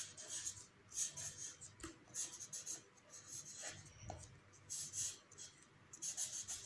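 Felt-tip sketch pen writing in cursive on a paper card: a run of short, uneven strokes of pen on paper with brief pauses between letters.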